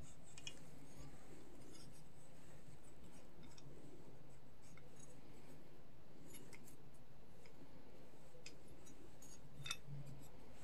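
Faint, scattered clicks and light taps of tools and parts being handled while a lawn mower is taken apart, over a steady low hum. One sharper click near the end.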